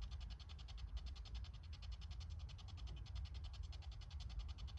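Spirit box radio sweeping up through FM frequencies, giving a fast choppy hiss of static that steps about twelve times a second, over a low rumble.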